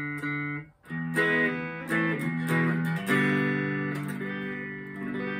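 Slick SL50 Telecaster-style electric guitar played clean through an amplifier: chords strummed about once a second, the last left ringing and slowly fading. The D string sounds a bit dud and out of tune.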